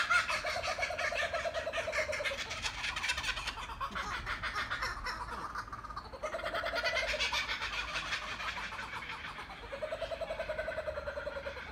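Kookaburras laughing together, a fast run of cackling calls from more than one bird. The chorus eases off around the middle and swells up again about six seconds in.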